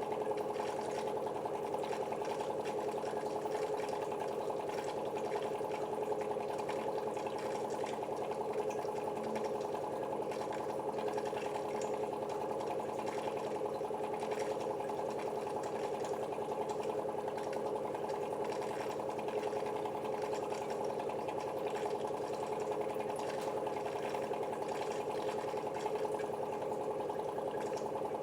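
KENT reverse-osmosis water purifier running: a steady motor hum from its pump over water flowing through the filtration stages. It holds even throughout.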